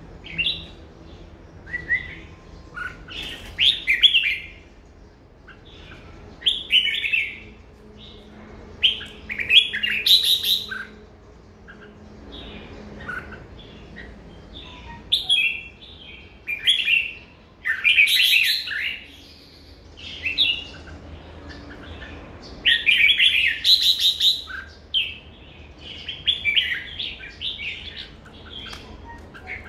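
Red-whiskered bulbul singing: short phrases of quick, high warbled notes, repeated again and again with pauses of a second or two between them.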